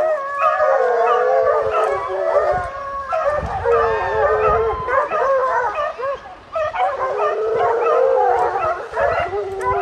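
A pack of American foxhounds baying and howling together on the trail of a deer, many long, wavering voices overlapping without a break.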